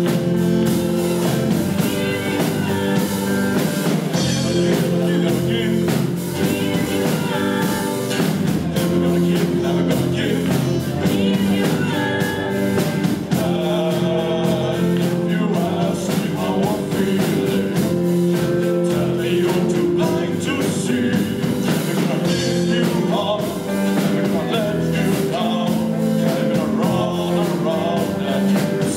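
A live rock band playing guitars and drums while two male singers sing into microphones.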